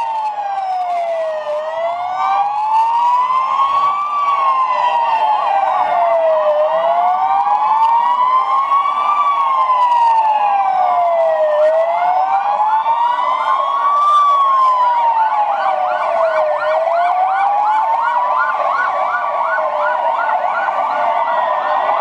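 Several police car sirens sounding together. The loudest wails slowly up and down, about once every five seconds, while others overlap it out of step. From about twelve seconds in, a faster warbling siren joins.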